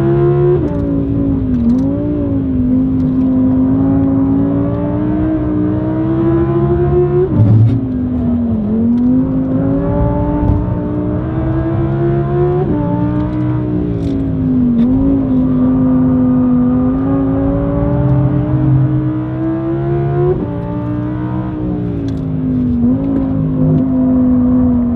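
Audi R8's 5.2-litre V10 with an ASG aftermarket valve exhaust under load, heard from inside the cabin at speed. The engine note climbs slowly and drops sharply about four times, over tyre and road rumble.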